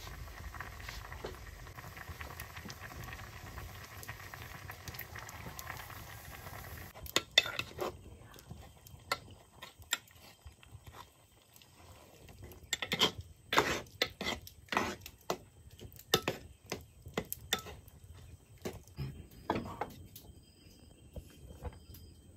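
A clay cooking pot on a wood fire boiling with a steady hiss for several seconds, then a metal ladle stirring in the pot, knocking and clinking against it in a run of sharp irregular strikes.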